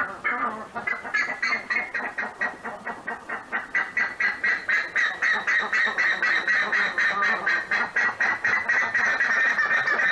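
Buff-necked ibis (curicaca) calling: a fast, even run of repeated call notes, about five a second, continuing without a break.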